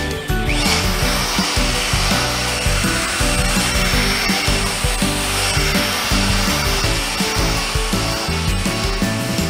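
Electric rotary polisher starting up about half a second in, then running steadily as its buffing pad rubs polishing compound over the painted steel skin of a car's rear door.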